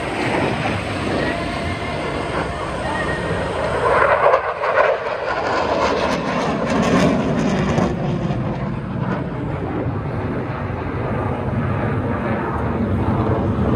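Airplane flying past, a loud steady roar that is strongest about four to five seconds in and then settles into a deeper rumble.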